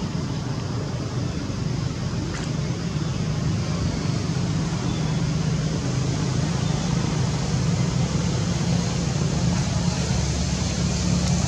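Steady low engine hum and rumble, like motor traffic running continuously, growing slightly louder toward the end.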